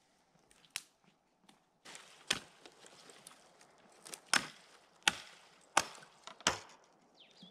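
Hatchet chopping a dead, dry branch: five sharp wooden strikes, the last four in quick succession, after a single knock about a second in.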